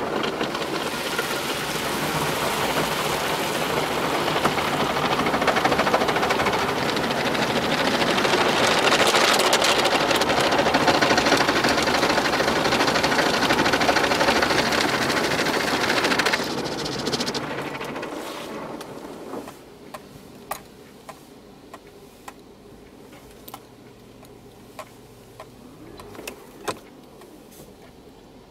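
Automatic car wash running over the car, heard from inside the cabin: a loud, steady rush that dies away about 17 seconds in as the car leaves the wash, leaving a much quieter stretch with a few faint ticks.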